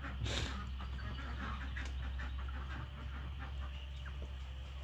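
Backyard poultry, hens and a duck, calling softly: a run of short, quiet clucking notes with one louder call about a quarter second in, over a steady low hum.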